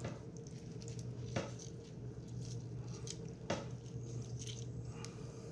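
Half a lime squeezed by hand over a bowl of raw fish fillets: faint squishing of the fruit and juice dripping, with a few soft clicks, over a steady low hum.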